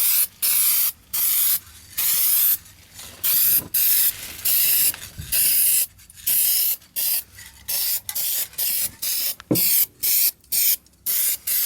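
Aerosol spray paint can spraying in many short, sharp on-off bursts of hiss, a can of paint being pulsed in quick passes.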